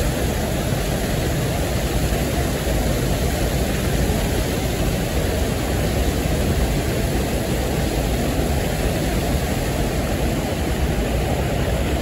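River water rushing over a check dam and churning below it: a loud, steady, unbroken rushing noise.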